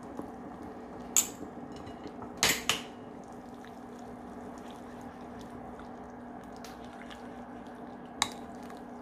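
A spoon clinking against an earthenware stew pot: a click about a second in and a quick cluster of clinks around two and a half seconds. Then a wooden spoon stirs doenjang paste into the stew, with a few faint taps and one more click near the end, over a steady low hum.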